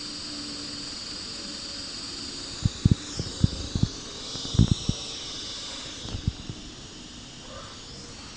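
Asus Transformer TF101 tablet's speaker giving off a steady high hiss, an unwanted noise from the speaker, with a whine in it that wavers in pitch midway. A handful of short soft knocks come in the middle.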